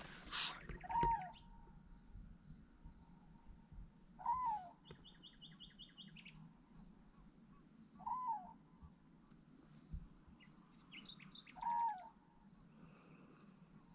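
Faint night-time outdoor sound: a steady, high, finely pulsing chirr, with a short call that rises and falls, heard four times about every four seconds. There is a brief run of rapid clicks near the middle.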